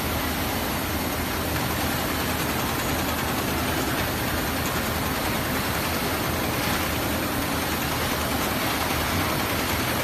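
Steady hum and hiss of running workshop machinery, even and unchanging, with no stitching rhythm.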